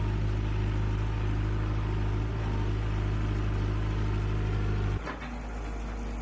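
A motor-driven machine's engine running steadily with a deep hum. About five seconds in, the sound drops abruptly and carries on at a lower level.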